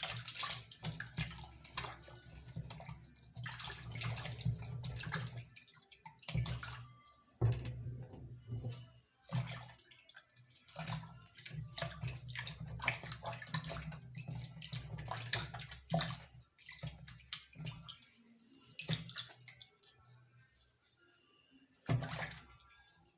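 Water running and splashing in irregular spurts with short breaks between them, thinning out near the end.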